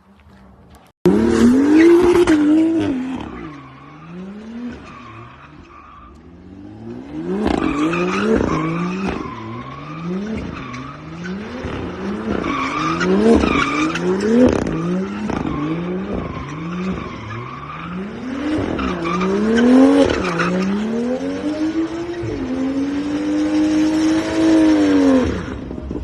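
BMW engine revving up and down over and over, about once a second, with tyres squealing as the car drifts. Near the end it is held at high revs for a few seconds.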